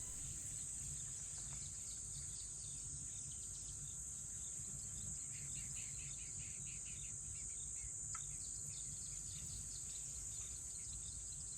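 African bush nature ambience: a steady high insect drone like crickets, with runs of quick, repeated chirping about halfway through and again near the end.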